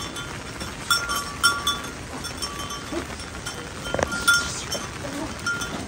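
Several short metallic clinks with a bright ringing tone over a steady hiss of rain.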